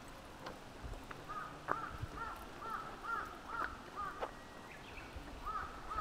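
A crow cawing in a series of short calls, about two a second, with a brief pause near the end before it starts again.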